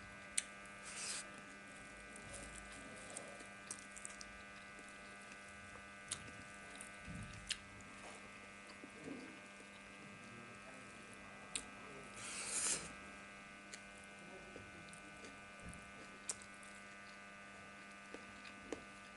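Close-up eating sounds from hand-eating rice with fried dishes: soft chewing and small sticky clicks of fingers in rice, with a louder chewing noise about twelve and a half seconds in. A steady electrical hum with several high whining tones runs underneath.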